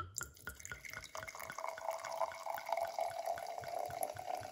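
Sparkling apple wine poured from a bottle into a tall ribbed glass: the stream splashes and fizzes into the glass with many small pops, and from about a second in a steady ringing tone of the filling glass.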